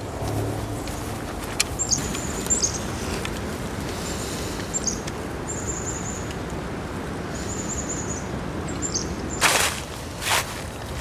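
A small bird chirping in short, high phrases every second or so over steady outdoor background noise, with two brief loud rushing noises near the end.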